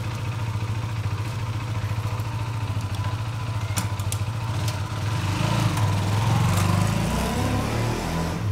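Honda CBR150R's single-cylinder engine idling steadily. About five seconds in it revs up and rises in pitch as the motorcycle pulls away, then eases off near the end.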